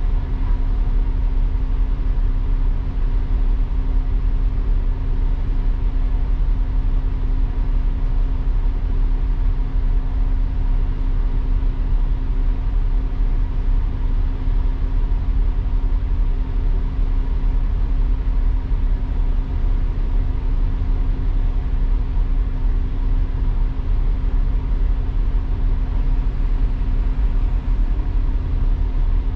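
Double-decker bus running steadily, heard from the upper deck: a low engine rumble with a steady hum laid over it.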